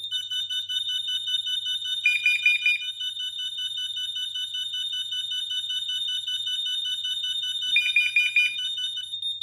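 Interlinked smoke, heat and carbon monoxide alarms sounding together in test mode after one test button is pressed: several high-pitched, rapidly pulsing alarm tones at different pitches, the sign that the alarms are linked. A lower beeping cuts in briefly twice, about two and eight seconds in.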